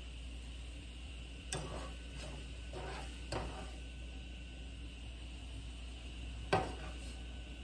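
A few light knocks of kitchenware, four in all, the loudest about six and a half seconds in, over a steady low hum.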